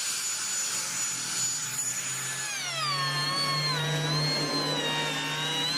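Electric woodworking power tool running with a high motor whine. About two and a half seconds in its pitch slides down and stays lower as the motor takes load cutting the wood.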